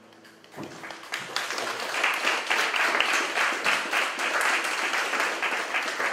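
The last chord of a nylon-string guitar fades out, then an audience breaks into applause about half a second in. The clapping swells to full, steady applause within a second or two.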